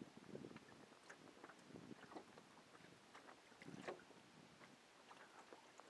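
Faint small waves lapping and splashing in irregular little slaps against a hull or buoy, with light wind.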